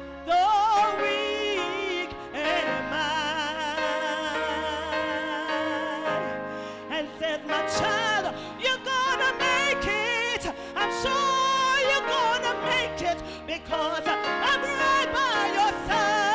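A woman singing a gospel song with strong, wavering vibrato over instrumental accompaniment that holds steady chords, her voice amplified through a microphone.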